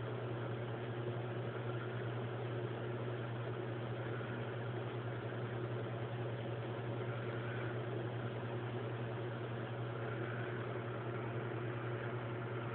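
A steady low hum with a hiss over it, unchanging throughout, like a fan or appliance running; no separate sound from the cat's licking stands out.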